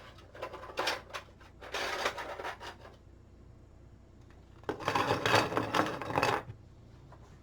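Handling noises: clicks, knocks and scraping of small hard objects being moved about, in two busier stretches over a low steady hum.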